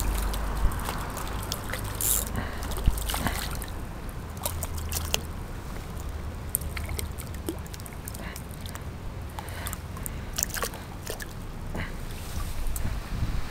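A small hooked trout splashing and thrashing in shallow stream water, in short irregular splashes over the running water.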